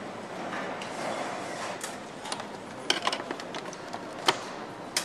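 Assembly-line workshop ambience: steady background noise with scattered light clicks and knocks of parts and fasteners being handled and fitted on a motorcycle, the sharpest knock a little past four seconds in.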